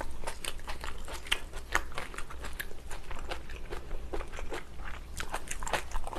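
A person chewing a mouthful of food close to the microphone: an irregular run of small mouth clicks and crunches, several a second.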